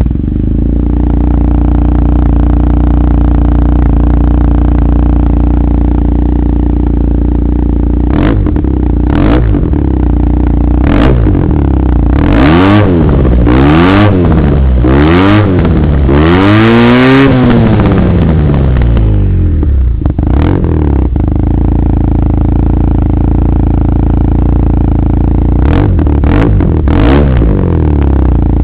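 Yamaha TMAX500 scooter's parallel-twin engine idling through a MAC header pipe and Maverick silencer with the baffle removed, blipped on the throttle again and again. Three short blips come about eight to eleven seconds in, then a run of four revs that rise and fall, the last held longest, a single blip, and a quick triple near the end before it settles back to idle.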